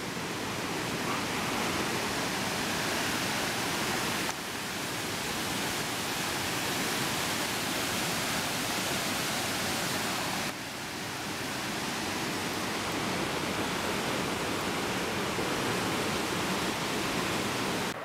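Steady rush of waterfalls, an even hiss of falling water that shifts abruptly in level twice, about four and ten seconds in.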